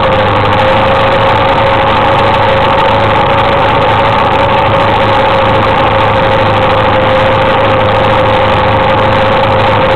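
Suzuki KingQuad ATV engine running at a steady speed while towing, a constant loud drone whose pitch does not change.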